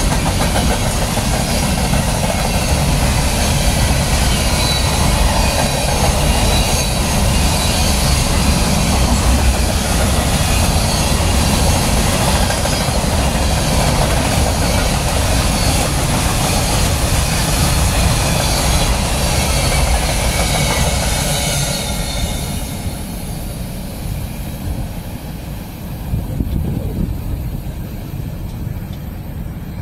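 Freight cars of a long train rolling past close by, with steady wheel and rail rumble and clatter. About 22 s in, the last car passes and the noise drops off, leaving a lower, fainter rumble as the train moves away.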